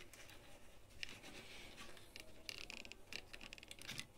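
Faint clicks and scraping of a ceramic cartridge fuse being worked out of and into its metal spring clips on a microwave oven's power filter board. There is a short quick run of ticks about two and a half seconds in.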